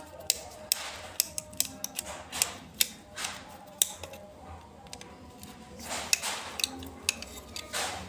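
Irregular sharp clicks and small plastic knocks as a screwdriver works the terminal screws of a plastic surface-mount power socket and wires are fitted, with a few short scraping rustles.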